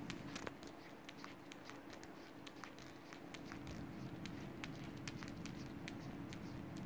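Light irregular clicks and taps, a few a second, from a kitten pawing and nosing at a smartphone's touchscreen keyboard, over a low steady hum.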